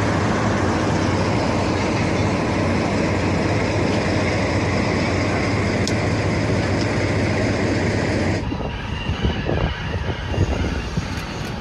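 DE10 diesel locomotive standing with its engine running, a steady low rumble. About eight seconds in, it gives way to a more distant, uneven sound of the train running along the line, with wind buffeting the microphone.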